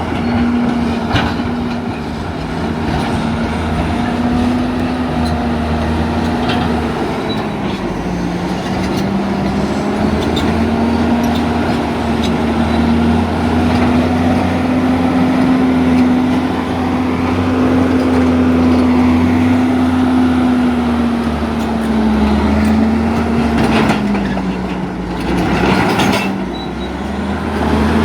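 Caterpillar D8T bulldozer's diesel engine running steadily, its pitch dipping and rising a little, with a few metallic knocks near the end.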